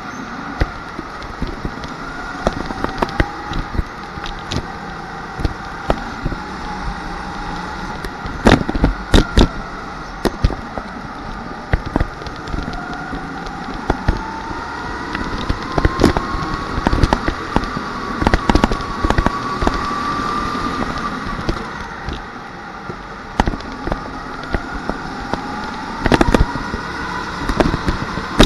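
Rental go-kart heard from on board at racing speed: the motor's whine rising and falling with speed through the corners, with a long climb in pitch on a straight midway. Frequent sharp knocks and rattles over it, bunched in a few loud clusters.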